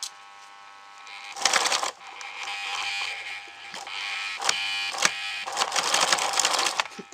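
Electric sewing machine running in spurts as it stitches fabric: a rattling mechanical clatter with quick clicks starts about a second in, breaks off briefly near two seconds and again near four and a half seconds, then runs on, over a faint steady hum.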